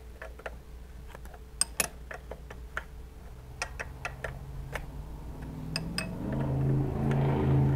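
Sharp metal clicks and ticks of a spanner wrench on a mini mill's locked spindle nut as the nut is worked loose. A low, steady hum swells in over the last two seconds.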